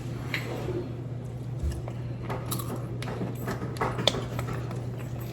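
Eating close to the microphone: crunching and chewing of Doritos nachos, with scattered small clicks and clinks of cutlery against dishes.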